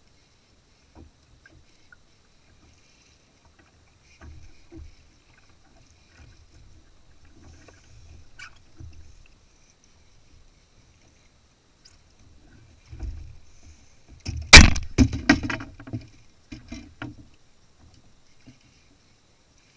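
Knocks and bumps on a Hobie Pro Angler kayak while a fish is fought from it: soft low thumps at first, then a burst of sharp knocks in the second half, the first of them much the loudest.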